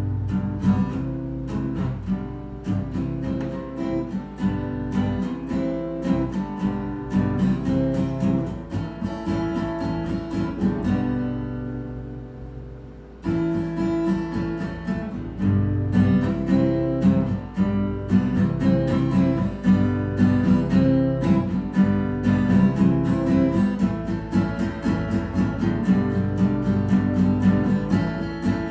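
Acoustic guitar strummed in a steady rhythm. About eleven seconds in the strumming stops on a chord left ringing and fading, and about two seconds later it comes back in louder.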